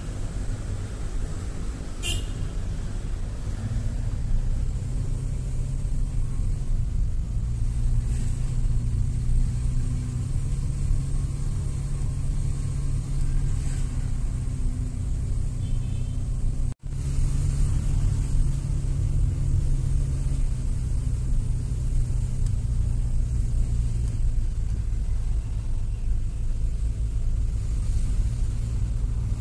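Car driving along a road, heard from inside: a steady low rumble of engine and tyres, with a brief toot about two seconds in. The sound cuts out for an instant about halfway through.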